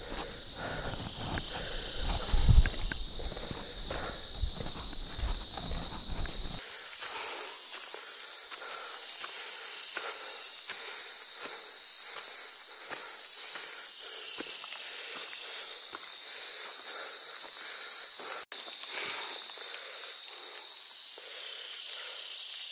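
A chorus of insects: a high steady drone with another insect calling in repeated pulses about a second long. Footsteps sound for the first several seconds.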